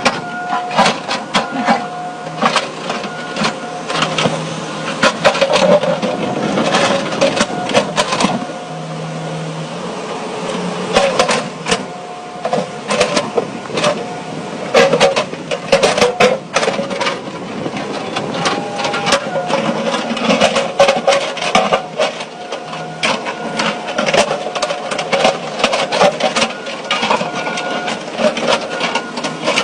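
Excavator working through rock: a steady mechanical whine under frequent irregular clattering knocks of stone and steel.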